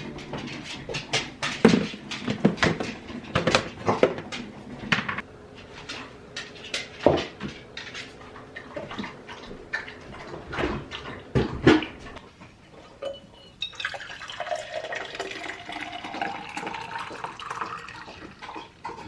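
Dishes and utensils clattering with many sharp knocks and clinks, then a steady rush of running water about two-thirds of the way in.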